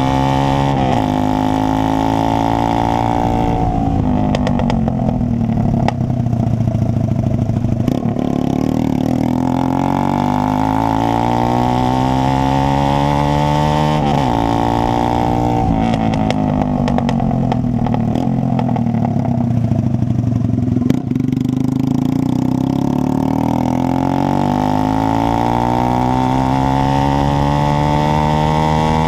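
Horizon 190 motorcycle with an open Roncar exhaust and no muffler, running loud. The engine note climbs steadily and then drops suddenly several times, as it does when the bike accelerates and shifts up through the gears.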